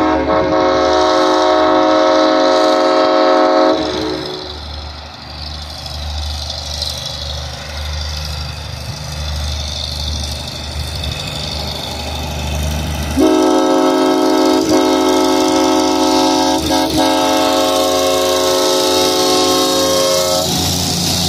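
Air horn of a GE 80-ton diesel switcher, sounding a steady chord of several tones. One blast ends about four seconds in, and a second, longer blast of about seven seconds begins about thirteen seconds in as the locomotive sounds for the grade crossing. Between the blasts the locomotive's diesel engines rumble low as it rolls slowly.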